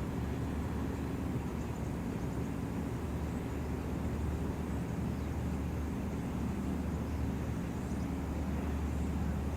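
Steady low drone of ship's engines and machinery, with a constant deep hum under a noisy rumble.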